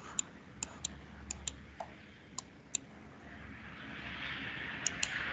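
Computer mouse clicking: about a dozen sharp clicks, several in quick pairs. A hiss swells in from about three seconds in.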